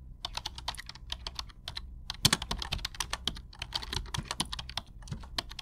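Typing sound effect: a run of rapid, irregular computer keyboard key clicks.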